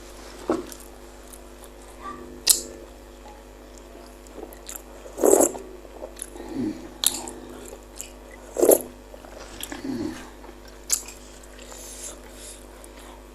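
Close-miked chewing and mouth sounds of a person eating spicy meatballs: scattered wet clicks and smacks, with two louder ones about five and nine seconds in.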